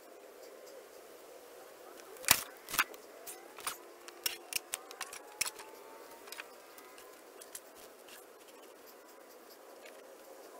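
A string of sharp wooden knocks and clacks starting about two seconds in, the first two loudest and smaller ones following over the next four seconds: sawn walnut slabs and wooden spacer sticks being set down on a drying stack.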